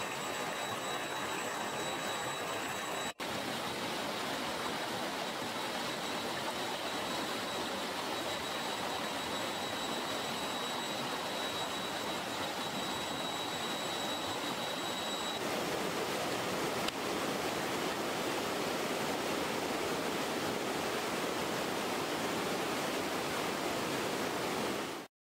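River water rushing over rocks in shallow rapids, a steady even rush. A thin high steady tone sits above it for the first half or so, there is a split-second gap about three seconds in, and the sound cuts off suddenly near the end.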